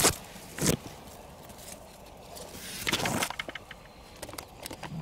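Leafy plants rustling in short bursts as they brush past: once at the start, again just under a second in, and a longer rustle around three seconds in. Small clicks and ticks come in between.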